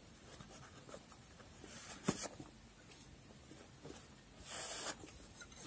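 Faint handling sounds as crochet hooks with plastic handles are slid into the pockets of a cloth hook case. There is a light knock about two seconds in and a short rustle of fabric near the end.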